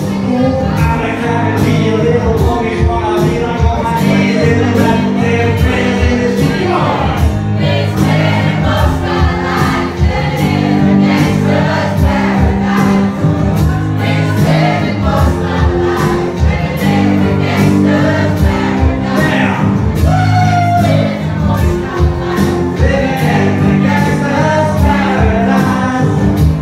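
A man singing live while strumming an acoustic guitar, with a steady, fast strummed rhythm under the vocal line.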